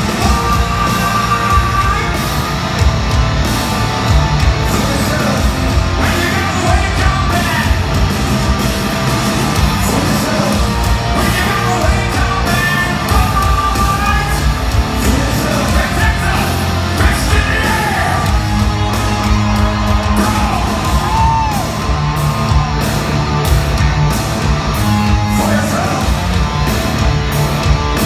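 Hard rock band playing live in a large hall: drums, distorted electric guitars and bass under loud sung and yelled vocals.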